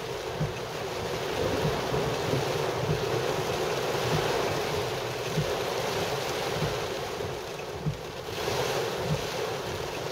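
Heavy rain beating on a car's roof and windshield, heard inside the cabin as a steady rushing noise, with the splash of the tyres on the flooded road. It eases briefly about eight seconds in, then comes back with more hiss.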